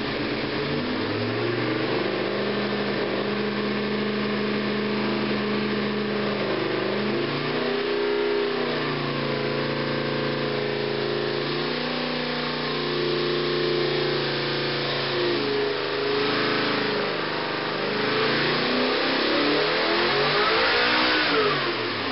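Rebuilt Chevrolet 402 big-block V8 running under load on an engine dynamometer. It holds several steady speeds in steps, then revs up and falls back again near the end.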